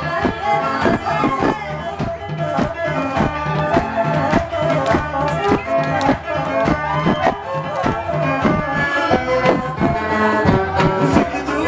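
Live Ethiopian traditional music: a washint, the Ethiopian end-blown bamboo flute, plays a melody over a steady drum beat.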